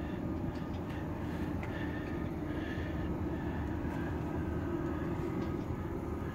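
Steady low rumble with a faint even hum and no distinct events.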